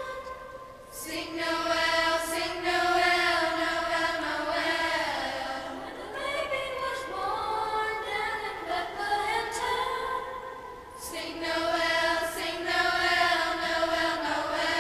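School choir singing a slow melody in long held phrases, with a brief pause for breath about a second in and another about ten seconds in.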